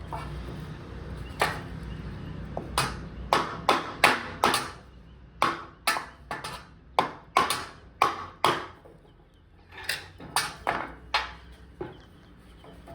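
Hammer blows on steel: a string of about twenty sharp, ringing strikes in uneven runs, with a brief pause near the end.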